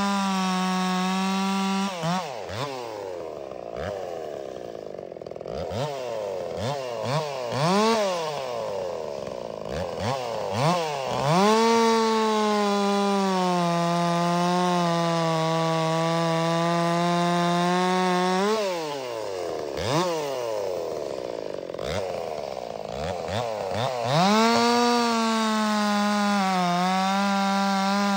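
Farmertec MS361 kit-built two-stroke chainsaw cutting into a log at full throttle, its note sagging slightly under load and shooting up as the bar breaks through. Between cuts the revs fall away with repeated quick throttle blips, and it goes back in at full throttle near the end.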